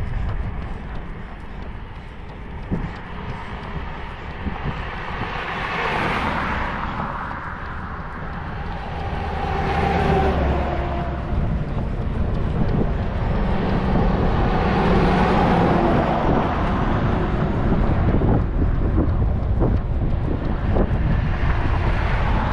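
Several vehicles passing one after another on a highway, each rising and fading, over a steady low wind rumble on the microphone, with the runner's footsteps faintly ticking.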